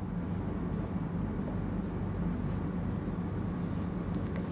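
Marker pen writing on a whiteboard: a quick series of short, scratchy strokes.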